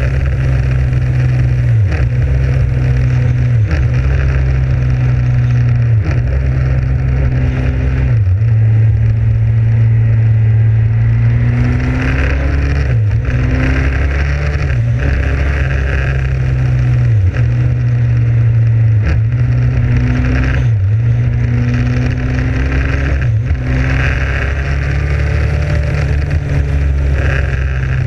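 Motorcycle engine running under way on the open road, its steady note dipping briefly in pitch every couple of seconds or so, as with gear changes or throttle lifts.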